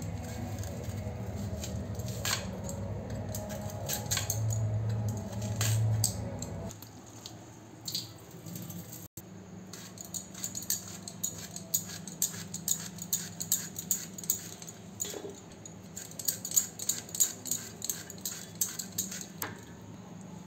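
A knife slicing peeled raw banana held in the hand, the slices dropping onto a steel plate with light clicks and clinks, a few a second in the later part.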